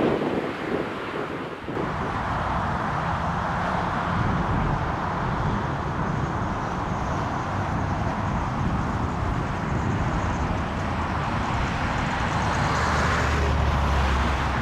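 Jet airliner engines running, a steady noise with a low hum underneath, with wind buffeting the microphone. The engine noise sets in abruptly about two seconds in.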